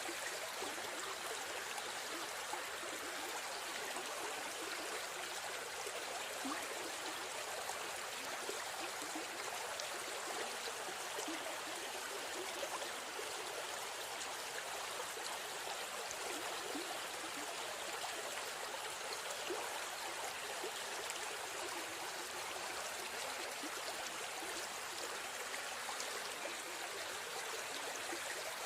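A river stream running and trickling steadily over rocks, a continuous water sound with no breaks.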